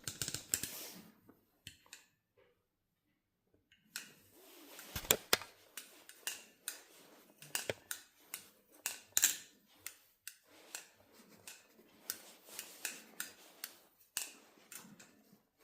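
Steel balisong (XDYY Kraken V3) being worked open and closed by hand: a run of sharp metallic clicks and clacks from the handles and pivots, about one to two a second, starting a few seconds in. The pivots still bind a little after oiling.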